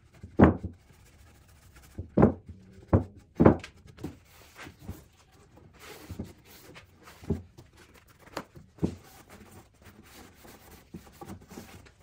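Dull knocks of a small red oak picture frame being set down and shifted on a plywood workbench while black stain is wiped onto it. There are about eight separate knocks, the loudest four in the first few seconds.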